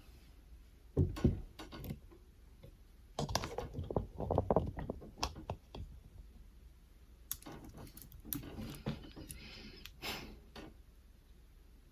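Irregular clicks, taps and knocks in three short clusters, the sound of hands handling small hardware and laptop parts during a MacBook Pro repair.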